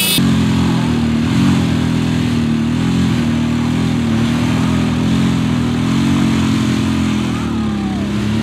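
Two single-cylinder motorcycle engines, a Royal Enfield Bullet 500 and a Bajaj Pulsar 220, running hard under load as they pull against each other on a tow rope, engine pitch wavering up and down as the throttles are worked.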